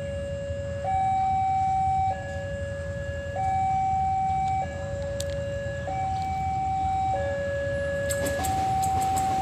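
Railway level-crossing warning alarm sounding, alternating steadily between two electronic tones, each held for about a second and a quarter, over a low rumble. Sharp clicks begin about eight seconds in.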